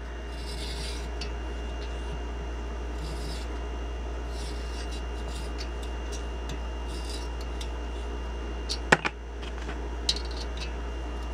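A steel thread tap being turned with a small wrench in the aluminium spark plug hole of a VW Beetle cylinder head, chasing cross-threaded threads: faint scraping every second or two, with one sharp click about nine seconds in. A steady low hum runs underneath.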